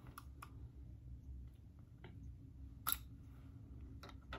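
A few faint, scattered plastic clicks and taps from a syringe and needle being handled and uncapped, with one sharper click about three seconds in and two more near the end, over a low steady room hum.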